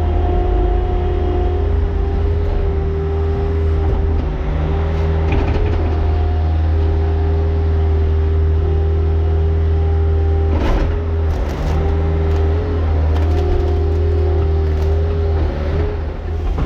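A motor or engine running steadily under load, with a deep hum and a slightly wavering whine over it, and a few sharp knocks or clanks about ten seconds in.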